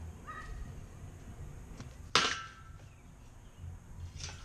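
Kick scooter riding onto a metal grind rail. One sharp, loud metallic clang with a brief ring comes about two seconds in, and lighter clacks follow near the end as the scooter comes off the rail, over a low rumble of wheels on concrete.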